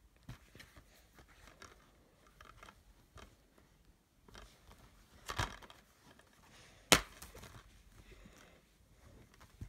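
Plastic DVD case being handled and opened: light taps and rustles, a short scrape about five seconds in, and one sharp snap about seven seconds in as the case's clasp pops open.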